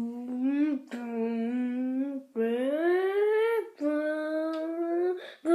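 Vocal imitation of a car engine: a hummed engine noise in four runs of about a second and a half each, each climbing in pitch and dropping at its end, like a car revving up through the gears. A fifth run begins near the end.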